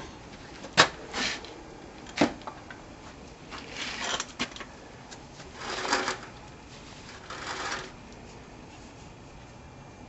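Hand work on a welder's metal rectifier plate: two sharp metallic clicks, the first the loudest, then several short scraping, rattling bursts as the plate is handled.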